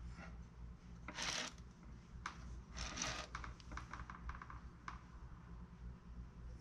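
Hands working a clay sculpture: two short scraping, rustling strokes, the first about a second in and the second about three seconds in, followed by a few light clicks, over a low steady hum.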